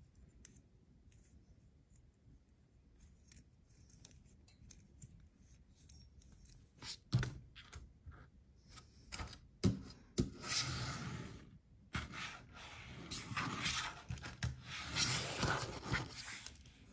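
A small toy car handled and set down on a tabletop with a few light clicks and two sharp knocks, then long stretches of crinkling and tearing as the next toy's packaging is opened.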